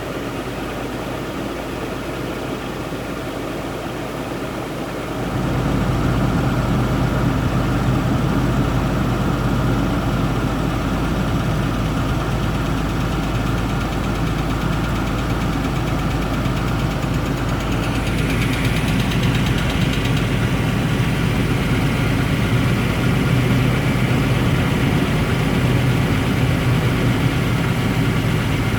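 1999 Nissan Pathfinder's VG33E V6 idling with a knock, growing louder about five seconds in. The owner describes it as a cold-engine knock that comes and goes and wonders whether lifters, a rocker arm or an exhaust manifold gasket leak is the cause.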